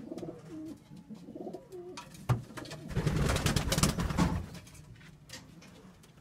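Racing pigeons cooing in a loft, low bending coos in the first couple of seconds. About three seconds in comes a second or so of loud scuffling noise, the loudest thing here.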